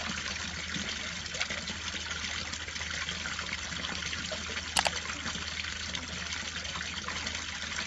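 Water from a small outdoor water feature spilling and splashing steadily over its spout, with one brief click about five seconds in.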